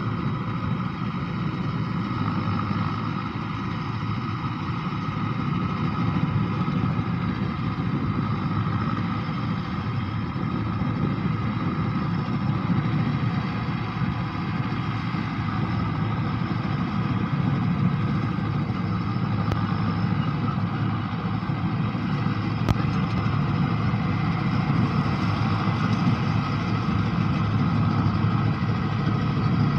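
Mahindra combine harvester running steadily, its diesel engine and machinery making a constant, even drone.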